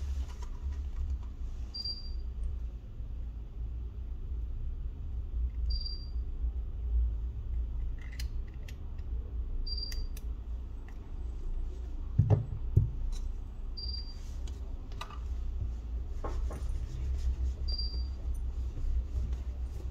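Hands handling a Samsung Galaxy Note 10+ on a rubber work mat: scattered light clicks and taps, and two thumps about twelve seconds in, over a steady low hum. A short high chirp repeats about every four seconds.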